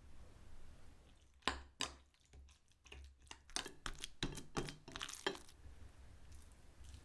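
Hand kneading and beating minced beef mixture in a glass bowl to make it sticky: a quick run of wet slaps and squelches that starts about a second and a half in and stops a little after five seconds.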